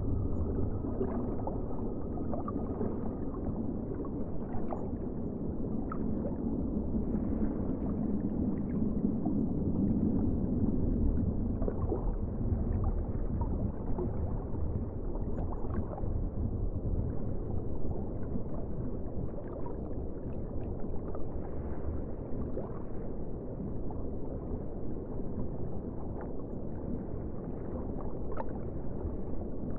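Underwater ambience: a steady, muffled low rumble with scattered faint clicks and pops.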